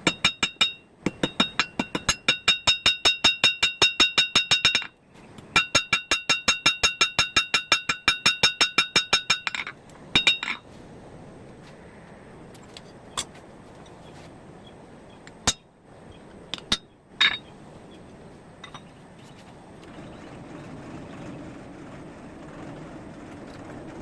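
Blacksmith's hammer striking a hot carbon-steel cut nail on an anvil: two runs of rapid, ringing blows, about five a second, with a short break between. These are followed by a few lighter taps and single clinks.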